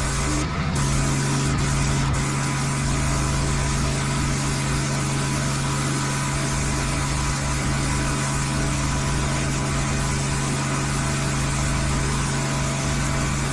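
Petrol pressure washer running steadily, its engine's low hum under the loud hiss of the water spray; the spray breaks off for a moment about half a second in.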